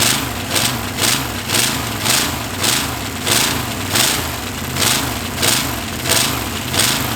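283 small-block Chevy V8, running with only one cylinder head, being cranked over by its starter while flooded. A low, wavering drone is cut by a loud rushing burst about every half second.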